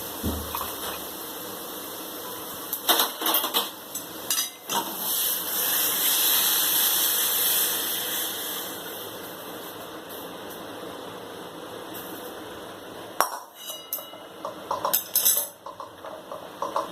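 Hot cumin water being poured from a metal kadhai through a strainer into a cup: a steady hiss of pouring liquid that swells and then fades, with sharp clinks of the metal pan and strainer a few times.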